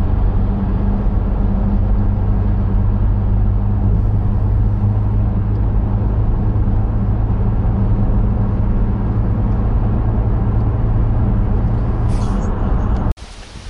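Steady in-cabin drone of a car driving at speed: engine hum and road noise, with a low steady hum underneath. It cuts off abruptly near the end.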